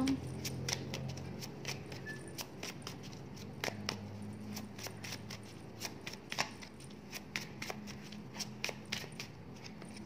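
Divination cards being handled and laid out: a run of light, irregular clicks and taps of card against card.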